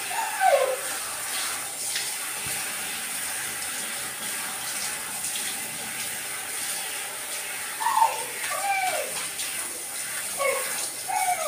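Handheld shower head spraying water steadily onto a wet dog's coat, a continuous hiss. A few brief vocal sounds, each rising then falling in pitch, cut through it about a second in and twice in the last few seconds.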